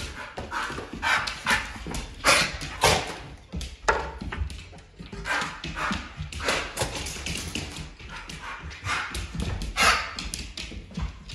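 Over-excited Rhodesian ridgeback/pit bull mix on a leash giving short barks at irregular intervals, the loudest about two to three seconds in and again near ten seconds.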